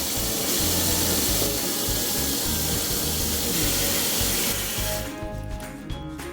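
Background music over a steady, strong hiss of rushing water, which stops about five seconds in, leaving the music with some small clicks.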